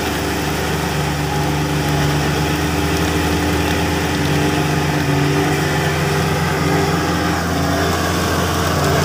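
Vehicle engine idling steadily, heard from inside the cab.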